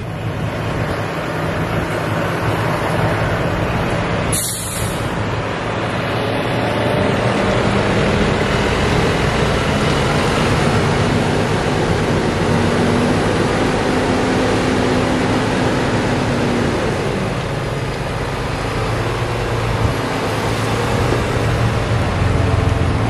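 Fendt 936 tractor's diesel engine running steadily while it works with a Wienhoff tridem slurry tanker. A short loud hiss of air comes about four seconds in.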